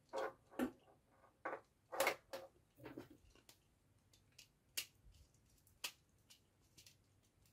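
Handling noise from a plastic relay socket and a small screwdriver working its terminal screw: short clicks and knocks, closely spaced in the first three seconds, then a few sparse sharp ticks.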